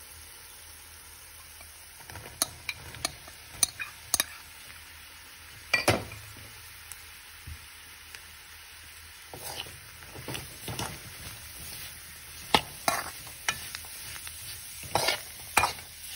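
Sliced mushrooms dropped into a hot metal kadai of frying spice masala, which sizzles quietly throughout. For the last several seconds a metal spoon stirs and scrapes them against the pan, with sharp clinks of metal on metal.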